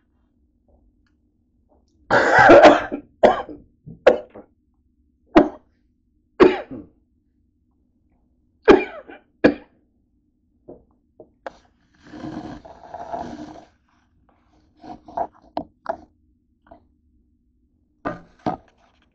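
A person coughing: a long hard cough, then a run of shorter sharp coughs over several seconds. Softer rustling and a few light knocks follow near the end.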